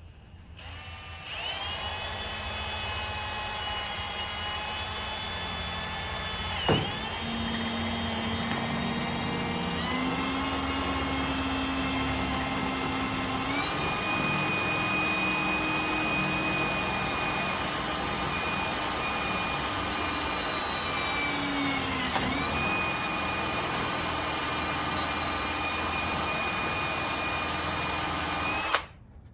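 Electric drill running steadily, boring a hole through a car body's pillar metal. The motor's pitch dips briefly twice, and it stops just before the end.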